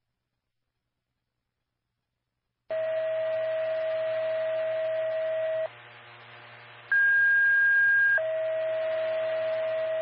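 Radio dispatch alert tones over radio hiss. Nearly three seconds in, a steady tone sounds for about three seconds, then a short pause, then a higher, louder tone for about a second, then the first tone again for about three seconds. This is the tone-out that alerts a fire station before its dispatch.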